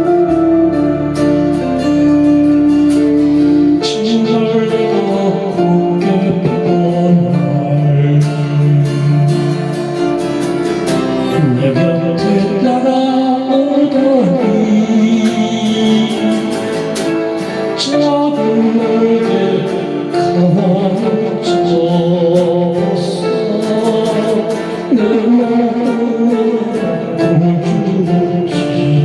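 A Korean ballad played with guitar accompaniment and a singing voice. A steady held chord opens it, and a sung melody comes in about four seconds in.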